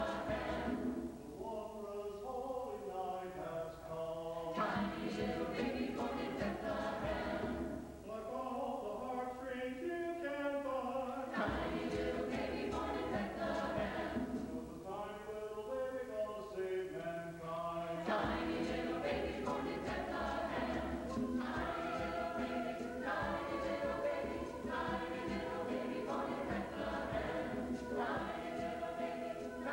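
Choir singing in sustained chords, phrase after phrase, with brief dips in volume between phrases.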